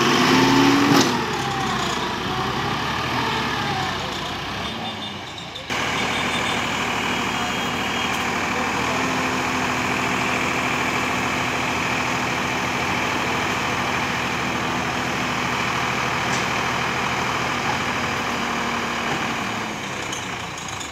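Eicher 650 tractor's diesel engine running steadily while its hydraulics tip up the loaded trolley, with a steady hum from about nine seconds in until near the end.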